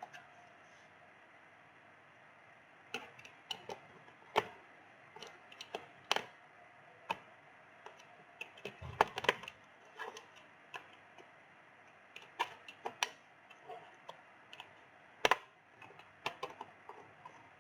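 Plastic clicks and snaps of a Lenovo V15 laptop's bottom cover being pried off, its clips popping loose one at a time. The clicks come irregularly and start about three seconds in.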